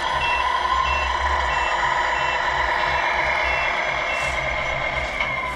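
Radio-controlled Scania R620 tractor unit reversing, its sound module playing a truck engine's low rhythmic running with a reversing beeper. About seven short high beeps come evenly, under a second apart, and stop about four seconds in, over a steady whine from the drive.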